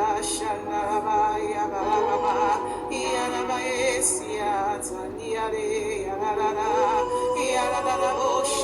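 Worship music: a singing voice holding long wavering notes with vibrato over held chords, with no drums.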